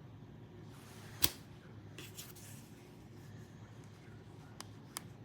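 Clicks from the handle of a Tineco Floor One S9 Artist wet-dry vacuum as its modes are switched: one sharp click about a second in, then a few faint clicks, over a faint low hum.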